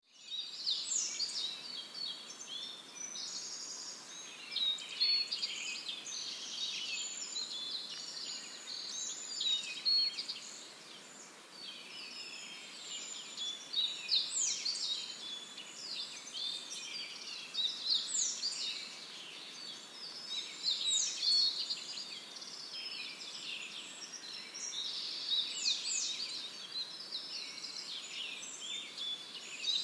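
Many birds chirping and twittering together, with louder calls that sweep quickly downward every few seconds.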